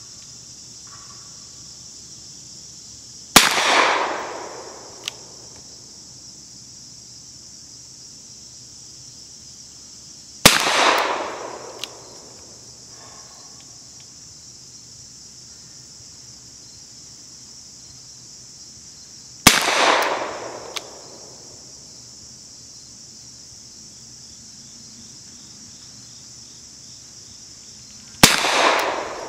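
Four single shots from a Webley Mk VI service revolver firing .455 Webley rounds, spaced seven to nine seconds apart, each a sharp crack that rings out for about a second. A faint sharp tick follows each shot about a second and a half later.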